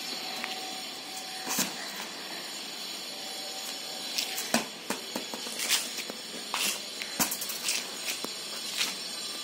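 Steady background hiss with scattered light taps and clicks, from a toddler's small steps and a rubber ball being pushed and dropped on a tiled floor.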